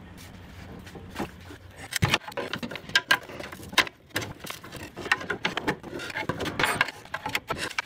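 Metal pry bar knocking and scraping against a Triumph TR7's steel engine-mount bracket as the old rubber mount is levered loose: a run of irregular sharp clicks and knocks starting about two seconds in.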